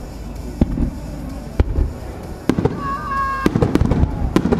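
Aerial firework shells bursting overhead: a series of sharp bangs about a second apart, each followed by a low rumbling echo, coming faster near the end.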